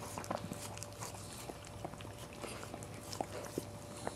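Cairn terrier mother licking a newborn puppy still in its birth sac: irregular wet tongue clicks and smacks. A faint steady hum runs underneath.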